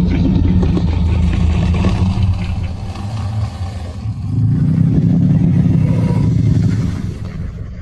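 Stock dinosaur growl sound effect: a deep, rumbling growl in two long swells, easing off about three seconds in and again near the end.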